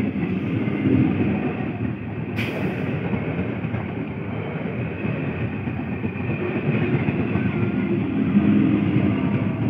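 Electric multiple unit (EMU) suburban local train passing close by at speed: a loud, steady rumble and rattle of coaches and wheels on the rails, with one sharp click about two and a half seconds in.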